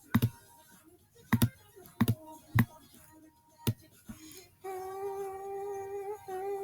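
Sharp computer mouse clicks, about five spread over the first four seconds, then a single long sung note from background music.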